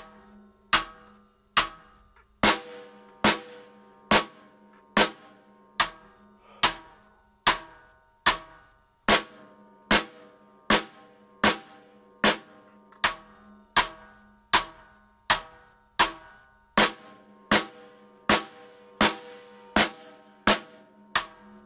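Instrumental music: drum hits at a steady beat of a little over one a second over sustained keyboard chords.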